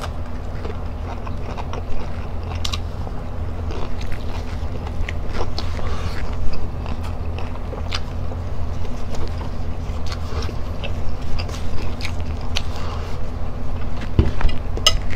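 A person chewing and biting food close to the microphone, with scattered short crunchy clicks, over a steady low hum.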